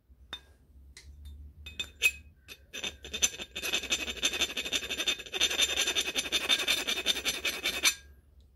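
Needle-nose pliers scraping and clicking against a heavy cast metal wheel from a reel-to-reel tape recorder: a few separate metallic clicks, then a dense, rapid rasping run of about four and a half seconds that stops abruptly near the end.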